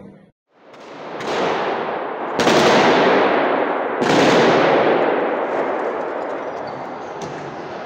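Bursts of automatic gunfire echoing through a large hall. The bursts start sharply about a second in, again at two and a half seconds and at four seconds, and each fades away in a long echo.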